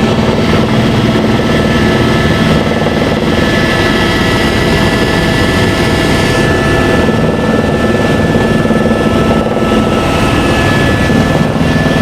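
Helicopter running steadily: a constant dense rumble of rotor and engine with a steady high whine on top.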